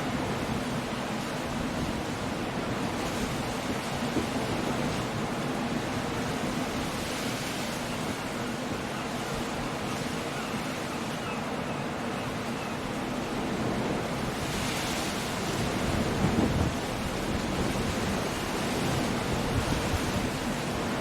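Stormy sea: surf breaking, with wind and rain, a continuous wash of noise that swells louder about three-quarters of the way through and again near the end.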